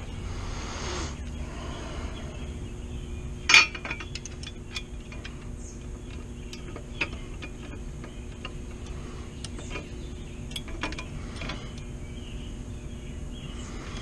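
Metal clinks and ticks of an Allen key and hand tools on the chain-guard fasteners of a Triumph Bonneville T120. One sharp clink comes about three and a half seconds in, then scattered light ticks follow, over a steady background hum.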